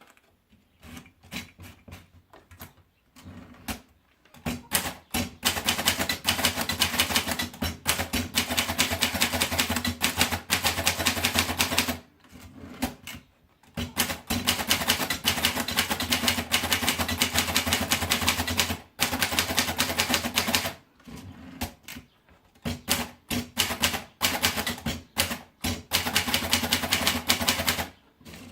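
Mercedes typewriter being typed on. A few scattered keystrokes come first, then fast runs of rapid key strikes broken by short pauses.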